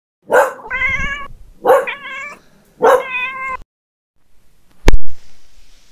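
Three meows, each under a second long with a strong start, then a single sharp click about five seconds in.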